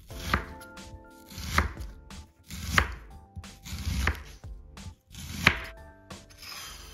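Chef's knife slicing an onion on a bamboo cutting board: five slow cuts, about one every 1.3 seconds, each ending in a sharp knock of the blade on the board.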